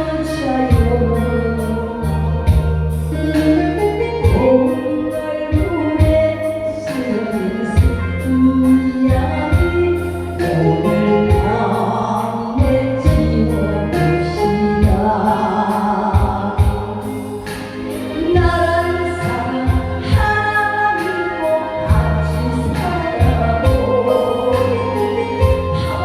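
A woman singing a Korean trot song into a microphone over a karaoke-style backing track with a steady beat.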